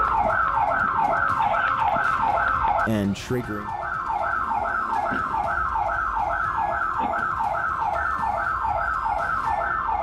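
House burglar alarm siren sounding: a loud falling whoop repeated about three times a second, breaking off briefly about three seconds in and then resuming.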